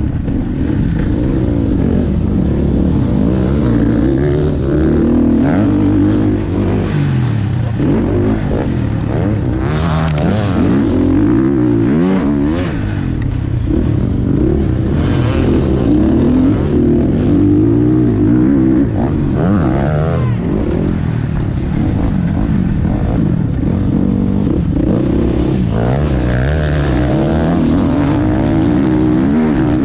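KTM 450 SX-F single-cylinder four-stroke motocross engine running hard, its pitch rising and falling continuously as the throttle is worked on a lap of a sand track.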